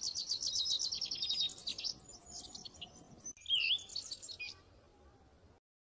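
Songbirds singing high and chirping: a fast run of repeated high notes for the first two seconds, then scattered chirps and a warbled phrase about three and a half seconds in. The sound stops suddenly near the end.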